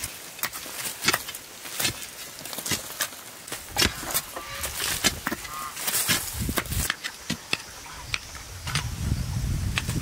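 Hand hoes chopping and scraping into dry, stony earth: irregular strikes, roughly one or two a second, with soil and pebbles rattling loose.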